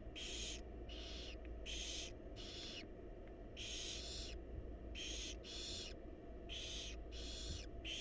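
Barn owl nestlings' hissing begging calls: short hisses repeated a little more than once a second, over a steady low hum.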